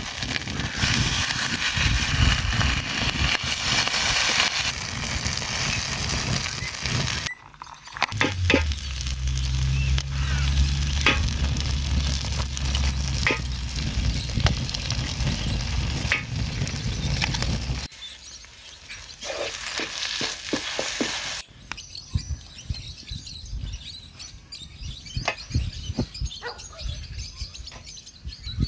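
Food sizzling in a frying pan, with scattered clicks and scrapes from a utensil stirring it. The sizzle stops abruptly a few times and is much quieter for the last quarter, where only light taps and a faint sizzle remain.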